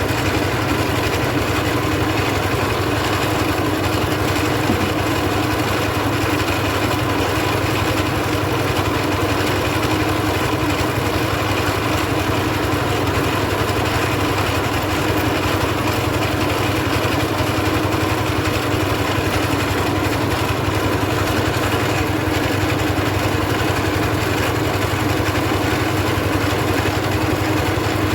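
Engine-driven mobile rice milling machine running steadily, a constant drone with no change in pitch or level.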